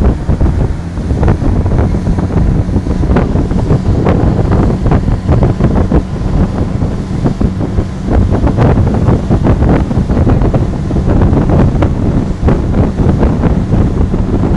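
Wind buffeting the microphone on a motorboat running at speed, over the rush of its churning wake, with frequent thumps throughout.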